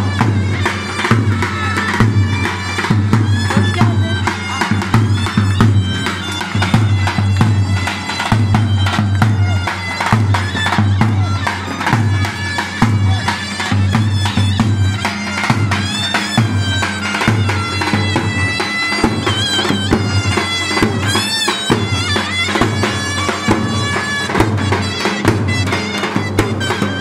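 Live Turkish wedding music: a loud, nasal reed wind instrument playing a fast, ornamented folk melody over the steady beat of a davul bass drum.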